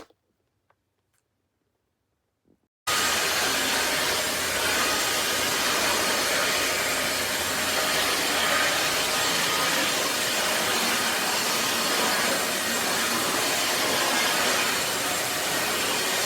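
Intercleaner corded stick vacuum with a 400 W motor running steadily and loud, starting abruptly about three seconds in after near silence.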